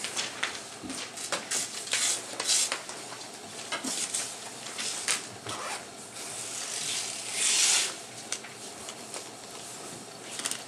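Paper sheets rustling and being handled: a string of short rustles and scrapes, with a longer, louder rustle about seven seconds in.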